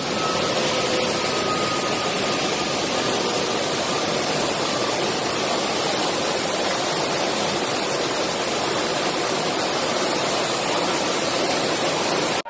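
Floodwater rushing through the open spillway gates of a dam, a steady loud rush of water. A faint high tone fades out over the first few seconds.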